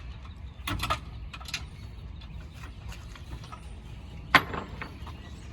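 Steady low rumble of a car cabin on the move, with a few light clicks about a second in and one sharp knock about four seconds in.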